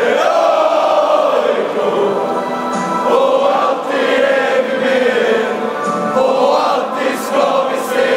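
A football crowd singing a chant together in unison, a mass of voices holding long notes close by.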